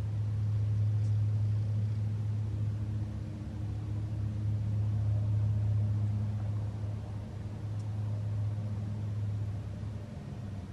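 Domestic cat purring steadily and close up, a low rumble that swells and eases every few seconds with its breathing.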